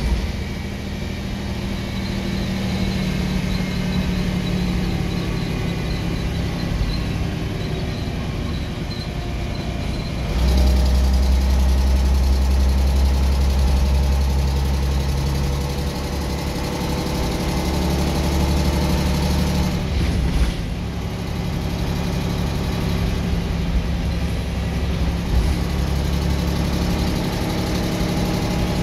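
Leyland National 2 bus engine running, heard from inside the passenger saloon. About ten seconds in it grows louder and deeper, and about twenty seconds in it briefly drops away before settling to a steady note again.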